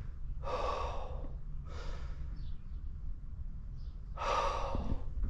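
A man's heavy breathing: three loud breaths, about half a second, two seconds and four seconds in, after he has been startled by a door blown shut by the wind.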